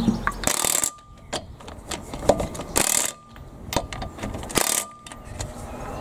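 Ratchet wrench clicking in three short bursts about two seconds apart as the wheel bolts are run in on a car wheel hub, with scattered metal clicks between.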